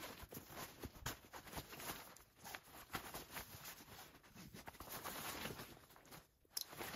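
Faint rustling of nylon fabric and soft clicks and slides of straps and buckles as a stuffed Sea to Summit compression sack is loosened to open it.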